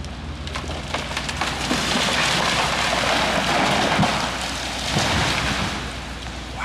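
A large tree coming down: a swelling rush of leaves and branches crashing, with sharp cracks and snaps, loudest about two to four seconds in and then fading. Under it runs a steady low engine hum.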